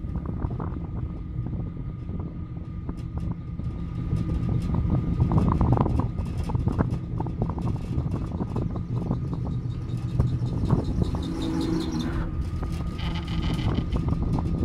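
Aerial cable car running along its cables: a steady low hum with wind noise on the microphone, and scattered clicks and knocks as the cabin passes a steel support tower.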